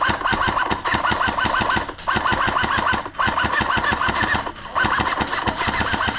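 Airsoft gun firing full-auto, its gearbox cycling at about ten shots a second with a short whine on each shot. It fires in long bursts with brief pauses between them.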